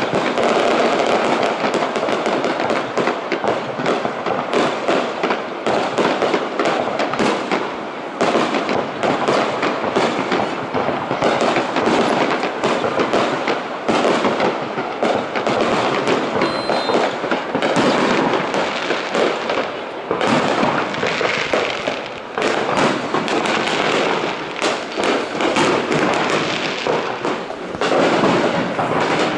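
Fireworks display: a dense, unbroken run of overlapping bangs and crackling pops.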